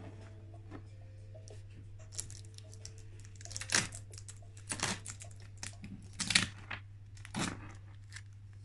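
Cotton macramé cords rubbing and rustling as hands tie knots: about six short scraping rustles, the loudest a little past the middle, over a steady low hum.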